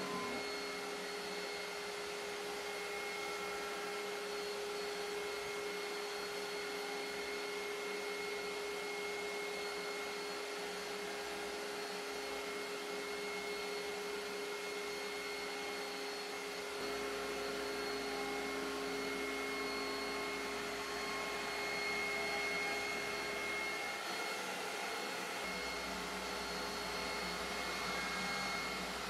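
CNC router's spindle router running with a steady whine over the rushing suction of the dust collector, as a flattening bit skims the MDF spoilboard. A low hum comes in a little after halfway.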